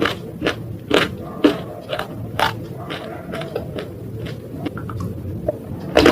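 Sharp crunching of something brittle, the crunches coming about twice a second at first, softer and sparser in the middle, with a loud crunch near the end.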